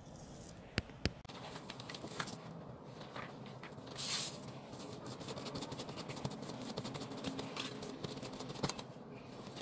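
Risen bread dough being handled in an aluminium bowl and on a plastic tablecloth. Two sharp knocks about a second in, a brief swish about four seconds in as the dough is turned out onto the table, soft patting and rustling, and a metal click near the end as a steel dough scraper is picked up.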